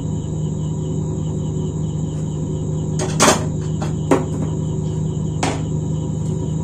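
A few light knocks as the soldering iron and the induction cooker's circuit board are handled and set down on a table: the loudest a little after three seconds and at four seconds, a smaller one about five and a half seconds in. Under them a steady low hum and a faint high whine.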